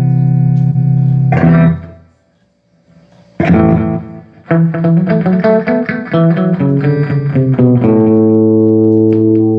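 Electric guitar played through a Line 6 Flextone III amplifier that has just had its pots and switches replaced: a held chord, a strum that dies away to silence for about a second, another strum, then a quick run of notes ending on a long ringing chord.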